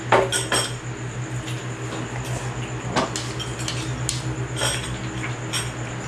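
Metal spoons clinking and scraping against ceramic bowls as people eat, in scattered sharp clicks, the loudest near the start and about three seconds in, over a steady low hum.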